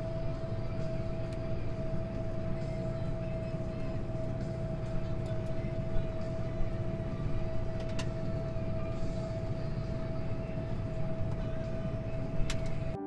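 Case IH Maxxum 145 tractor and the Kuhn VB 3160 round baler it pulls, heard from inside the tractor cab: the engine runs steadily while baling straw, with a steady whine over it and a few sharp clicks, the loudest near the end.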